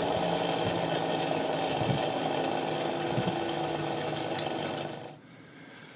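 Rotary-blade sharpening machine running steadily, a rotary cutter blade being polished on its second wheel charged with polishing compound. The steady hum cuts off abruptly about five seconds in.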